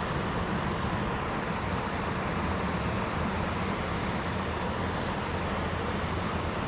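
Steady rush of water pouring over a low dam spillway, even and unbroken.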